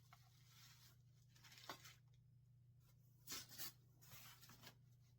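Faint handling noise: a few brief rustles as the kit's parts are moved, near two seconds in and again around three and a half seconds, over a faint steady low hum.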